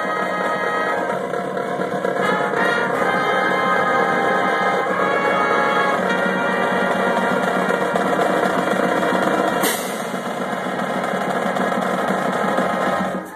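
High school marching band playing a tune: brass and woodwinds over snare and bass drums, with one sharp hit about two-thirds of the way through. The band cuts off sharply at the end.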